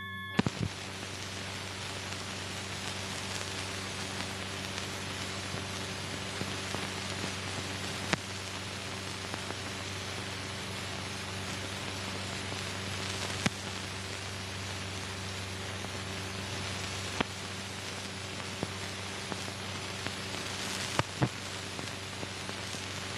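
Steady hiss and low hum of an old film soundtrack with no recorded sound, dotted with sharp clicks and pops. The hiss cuts in just after the start, with a short cluster of pops.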